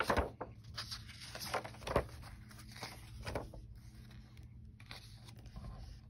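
Pages of a hardcover picture book being turned by hand: several brief paper rustles and soft flaps as the stiff endpapers and pages are flipped over.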